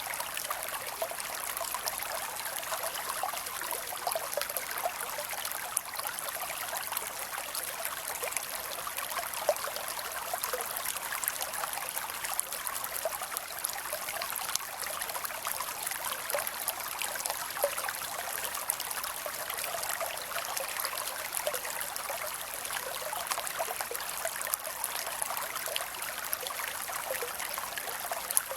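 Creek water running and trickling steadily, an unbroken splashy rush full of small crackling splashes.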